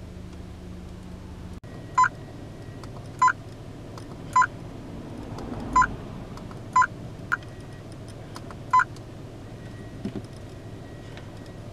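Navycrest A2 Pro dash cam giving short electronic beeps as its buttons are pressed, six beeps at uneven intervals, over a steady low hum.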